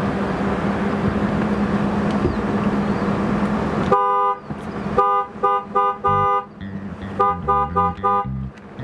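Steady vehicle road noise with a low hum, which stops abruptly about four seconds in. Then a car horn with two tones sounds: one honk, then two rhythmic groups of three short honks and one longer honk.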